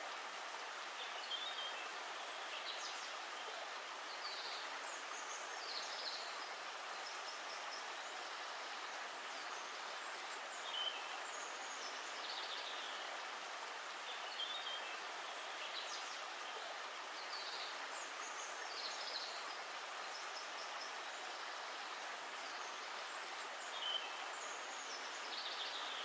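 Steady rushing of river water, with birds chirping in short, high phrases every second or two.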